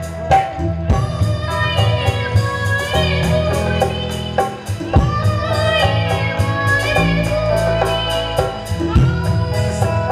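Live band music with keyboard, electric bass guitar and percussion keeping a steady beat, a wavering melody line running over it.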